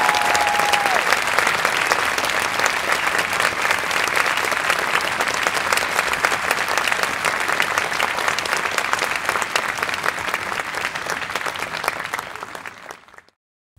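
Large audience applauding steadily, dense clapping throughout. A held final note of the music fades out in the first second, and the applause cuts off abruptly near the end.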